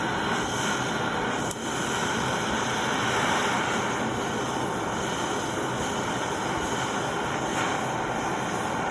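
Portable gas torch burning steadily with an even hiss, its flame heating a bicycle disc brake pad to burn out the oil it has soaked up.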